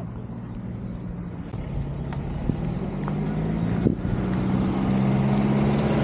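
An engine running at a steady pitch, growing louder as it draws near, with a short knock about four seconds in.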